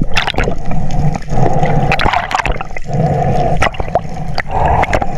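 Sea water sloshing and gurgling with many short splashes at the surface, as divers haul a speared fish up by its line.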